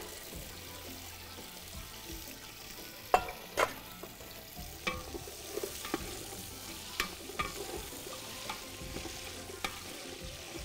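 Sliced onions frying in oil in a large aluminium pot while a wooden spoon stirs them, knocking against the pot's side every second or so. The two loudest knocks come about three seconds in.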